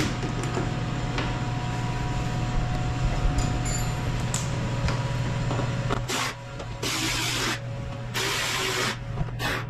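A cordless ratchet running in short bursts, driving the 10 mm fasteners of a mud guard on a UTV fender: a brief run about six seconds in, two longer runs of under a second each, and a brief one near the end. A steady low hum sits underneath throughout.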